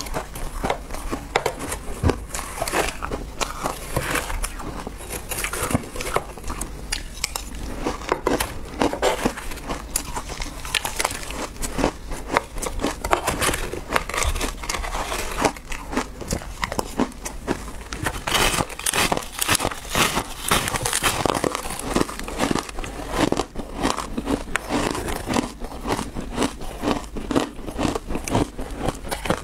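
Ice being chewed and crunched close to the microphone, a dense run of crackling bites, with a metal spoon scooping into a crumb-coated ice cake.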